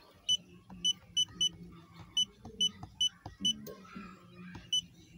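Handheld automotive diagnostic scan tool beeping as its buttons are pressed while scrolling through menus: about nine short, high beeps at irregular intervals.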